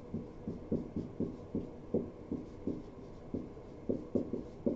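Dry-erase marker writing on a whiteboard: a string of short, irregular strokes and taps, about three a second, as letters are drawn.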